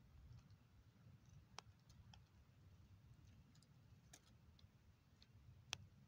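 Near silence: a low background rumble with scattered faint clicks, the sharpest one near the end.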